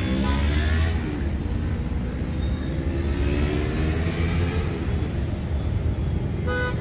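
Busy road traffic: a steady low engine rumble, with vehicles accelerating past, their engine pitch rising in the first second and again about three seconds in.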